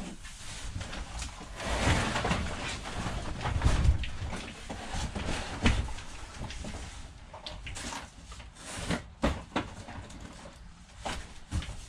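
Goods being handled and sorted by hand: rustling with scattered knocks and clicks as items such as DVD cases are moved and set down. The rustling is loudest in the first few seconds.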